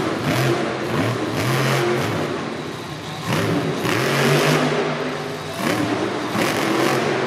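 Monster truck's supercharged V8 revving hard and easing off, with two dips in loudness, about three seconds in and again a little past five seconds, each followed by a fresh rev.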